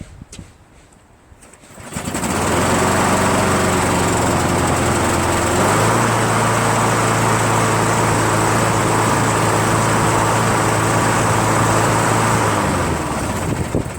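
A 6.5 hp Briggs & Stratton engine on a walk-behind lawn mower starts about two seconds in and runs steadily. It picks up speed about six seconds in, then is shut off near the end and winds down.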